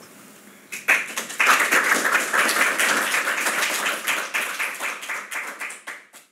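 Small audience applauding with hand claps, starting about a second in and fading away near the end.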